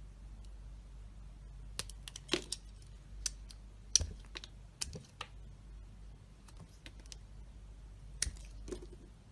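Knife cutting into a bar of dry soap: irregular crisp clicks and short scrapes, in clusters about two seconds in, around four to five seconds, and again near the end.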